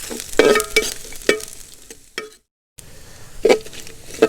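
Ladle scraping and knocking against a pan as ginger, garlic, green chilli, curry leaves and chopped coconut fry and sizzle in hot coconut oil. The sound drops out completely for a moment a little past halfway, then the stirring picks up again.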